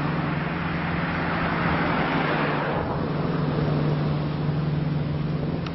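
Road traffic noise: a steady low engine hum under the hiss of a passing vehicle that eases off about three seconds in.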